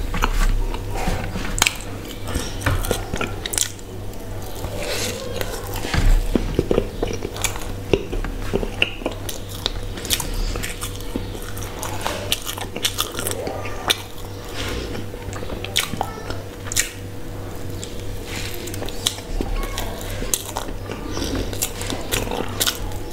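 Close-miked eating: chewing with many wet mouth clicks, smacks and bites, as a slice of cream-topped sponge cake is bitten and chewed.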